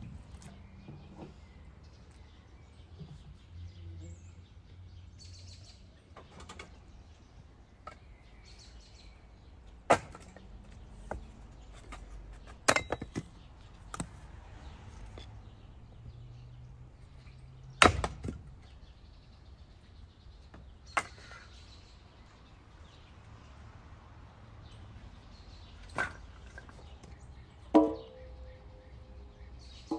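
Axe splitting firewood on a wooden chopping block: about half a dozen sharp, separate knocks a few seconds apart. Near the end, wood is dropped into a metal fire bowl with a ringing clang.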